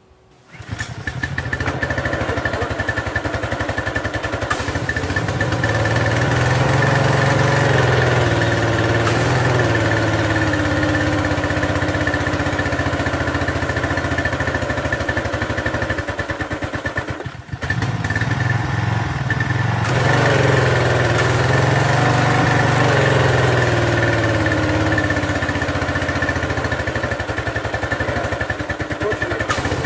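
A pressure washer's Briggs & Stratton 175cc overhead-valve engine starts up just after the beginning and runs, its speed sagging and rising again in slow swells, with a brief drop in sound about two-thirds of the way through. The owner thinks the idle-down is partly not working, though it does seem to do something.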